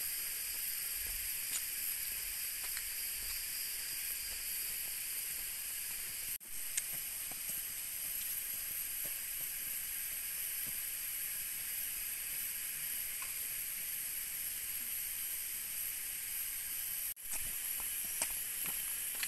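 Steady, shrill chorus of rainforest insects, a drone in several high pitches at once. It cuts out for a split second twice, and a few faint clicks come near the end.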